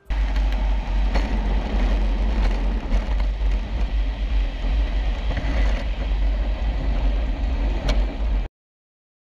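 Wind buffeting and road noise on a camera mounted aboard a human-powered racing vehicle at speed: a steady, deep, rushing rumble with a few sharp knocks. It cuts off suddenly near the end.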